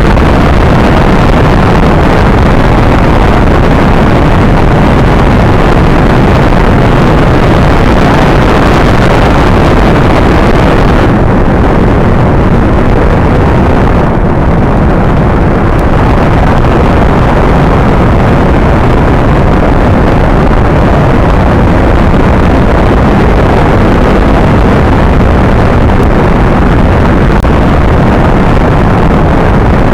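Space rocket engine sound effect: a loud, steady rumble of dense noise, its upper hiss dimming a little about eleven seconds in.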